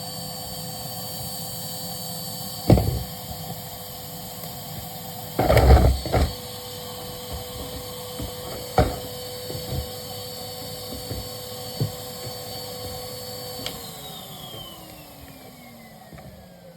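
Numatic Henry workvac vacuum cleaner running with a steady whine, with a few sharp knocks and clatters from the hose and nozzle as it picks up sawdust. About fourteen seconds in it is switched off and the motor winds down, its whine falling steadily in pitch.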